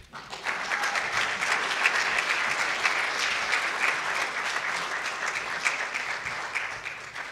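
Lecture-hall audience applauding steadily, then fading out near the end.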